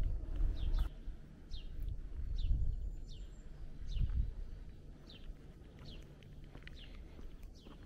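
A bird repeating a short, falling chirp about once a second, over a low rumbling noise that is stronger in the first half.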